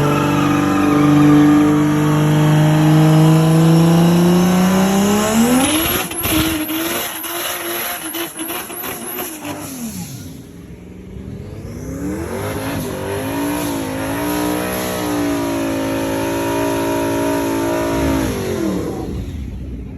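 Car engine accelerating hard, its pitch climbing steadily for about six seconds, then a spell of rapid crackling as the note falls away. A second engine note then wavers and holds steady for several seconds before cutting off near the end.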